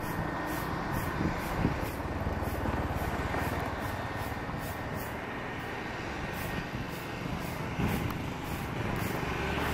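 KAI KT-1 Woongbi trainer's PT6A turboprop engine running at taxi power, a steady drone with the propeller turning, growing louder near the end.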